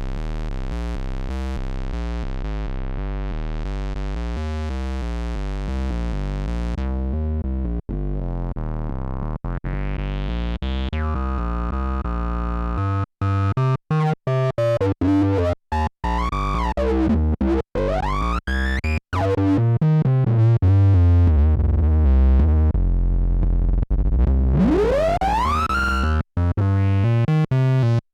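Korg Monologue analog monophonic synthesizer playing a fat, sustained bass pattern, then a fast staccato sequence from about halfway in, its resonant filter sweeping up and down in repeated whistling glides.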